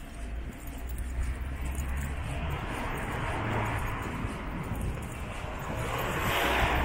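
Street traffic: passing vehicles over a low, steady rumble, the noise swelling about halfway through and again near the end as vehicles go by.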